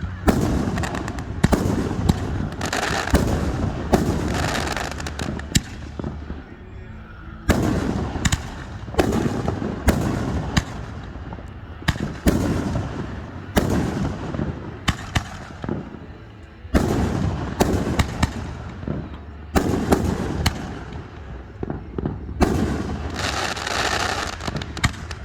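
Aerial fireworks shells bursting one after another, a sharp bang every second or two, each followed by a rolling echo that dies away, with a denser run of bursts near the end.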